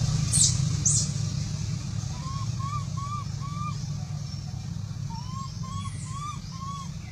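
An animal calling in runs of three or four short hoot-like notes that rise and fall, over a steady low hum. Two quick high chirps come about half a second and a second in.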